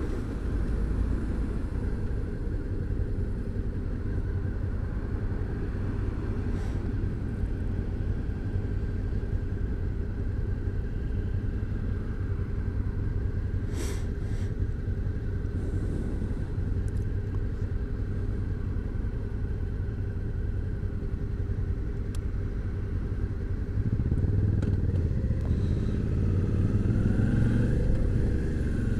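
Motorcycle riding on the road: a steady engine and road drone that grows louder about 24 seconds in.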